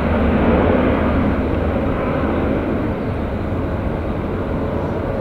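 Boeing 787-8 airliner climbing away after takeoff: a steady jet engine rumble that slowly fades.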